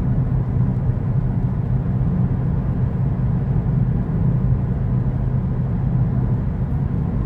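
Steady low rumble with a constant low hum underneath, unchanging throughout.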